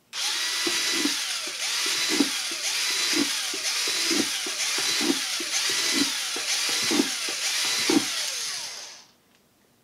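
Cordless drill boring a row of drain holes through a plastic container. The motor's pitch sags and recovers over and over, about once every three quarters of a second, as the bit bites into the plastic and breaks through. The drilling cuts off suddenly near the end.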